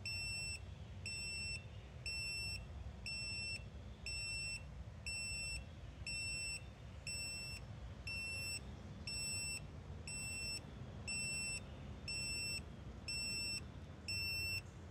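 Sensyx SFD201 handheld gas leak detector beeping its alarm, one short high beep about every second. It is signalling that it still senses natural gas near the grill burner.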